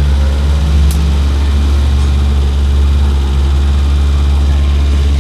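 Steady, loud low mechanical drone like an engine or machine running, with one sharp click about a second in.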